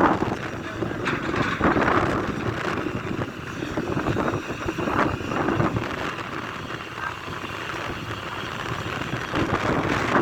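Heavy machinery running, uneven and rising and falling in loudness, with wind buffeting the microphone.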